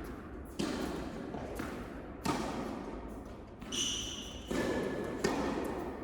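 Tennis ball struck by rackets and bouncing on an indoor court during a rally: a string of sharp pops and thuds about a second apart, echoing in the hall. A brief high squeak comes about four seconds in.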